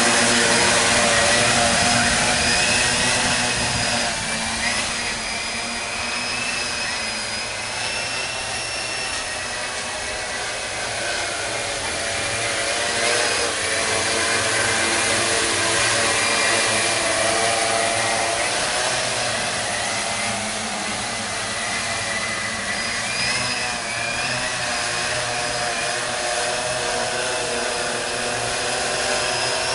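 3W16-10 eight-rotor agricultural spraying drone in flight: a steady, loud propeller buzz whose pitch wavers slightly as the rotors change speed to hold and steer it.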